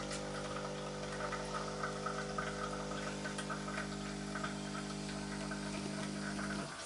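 A steady hum of several held tones that cuts off suddenly near the end.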